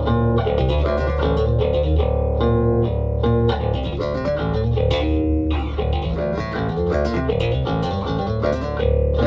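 Mayones multiscale bass, tuned low, played through an Origin Effects Cali76 compressor with the ratio turned up: a busy run of plucked notes, mostly short with a few left ringing.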